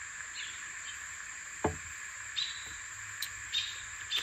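Plastic and metal blind rails being handled and slid together: a few light clicks and one sharper knock about one and a half seconds in. A steady high insect drone runs underneath.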